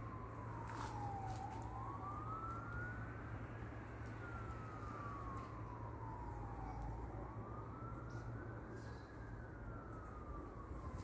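A faint emergency-vehicle siren wailing, its pitch sliding slowly down and back up about every five seconds.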